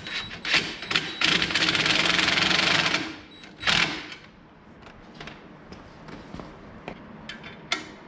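Bolts being tightened with a 7/16 inch socket on a UTV accessory mount: scattered clicks and knocks of the tool on the fasteners, with a fast run of clicking lasting about two seconds near the start. A single sharp knock follows, then lighter ticking.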